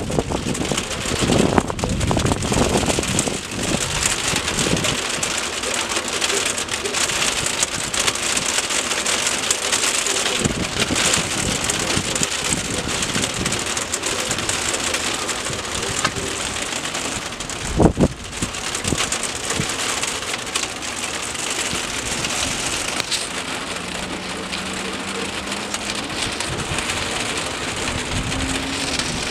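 Steady rain falling on the street and surroundings, a constant hiss, with gusts of wind buffeting the microphone in the first few seconds. A single sharp thump stands out about eighteen seconds in.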